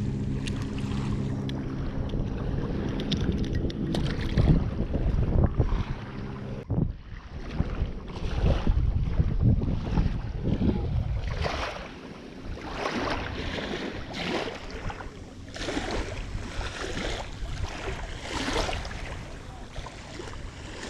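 A steady low motor hum, like a boat engine running out on the water, which cuts off about seven seconds in. Then comes a rushing wind-and-water noise that swells and fades about once a second.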